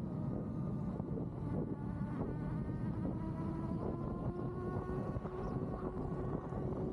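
Steady whine of an electric unicycle's hub motor over rumbling wind on the microphone. The whine rises slightly in pitch from about two seconds in as the wheel speeds up.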